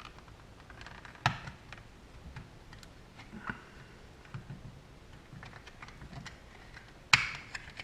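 Small plastic clicks and taps as the opened battery charger's case and circuit board are handled and lifted out. There is a sharp click about a second in and a louder clack near the end.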